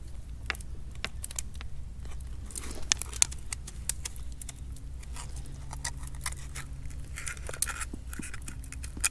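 A knife blade scraping and clicking against a scallop shell as the shell is prised open to take off the top half: an irregular run of sharp clicks and short scrapes.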